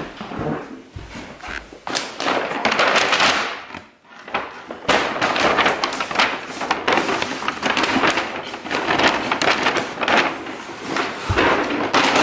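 Paper shopping bag rustling and crinkling in bursts as it is handled and a folded blanket is pulled out of it, with a short pause about four seconds in.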